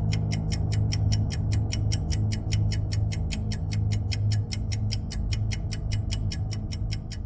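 Rapid electronic ticking, about five ticks a second, over a low synthesized drone that swells and fades: countdown sound effects for an animated title sequence.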